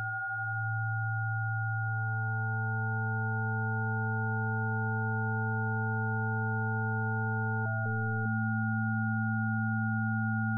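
Oscilloscope music from the Unilateral Phase Detractor's sine-wave oscillators: a chord of steady pure tones over a strong low tone. This audio is the X/Y signal that draws the shapes on the oscilloscope. About two seconds in, more tones join; just before eight seconds, some step briefly up in pitch and back down before one drops out.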